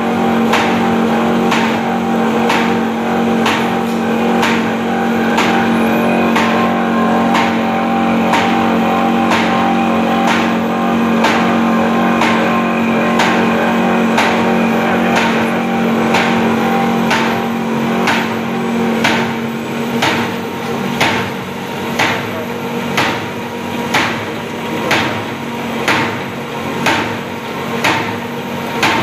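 Corrugated cardboard sheet-cutting machine running: a steady mechanical hum with a regular knock about one and a half times a second, the rhythm of its cutter working through the sheets. The hum drops away about two-thirds of the way through, leaving the knocks clearer.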